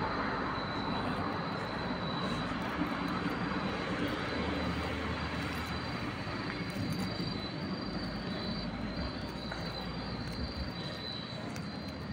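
Steady outdoor ambient noise: an even rushing hiss with a thin, high, steady tone above it.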